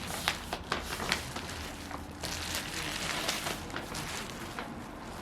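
Eating at the microphone: scattered soft clicks and crackles as the seafood boil is picked at from its bag and the first bite is taken.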